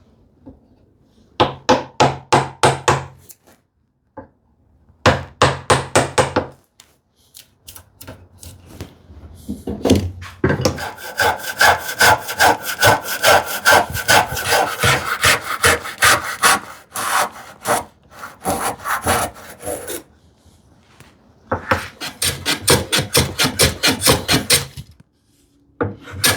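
Hand saw crosscutting a wooden board, in quick back-and-forth strokes of about five a second. It comes in several runs with short pauses, the longest lasting about ten seconds, with a faint ring from the blade.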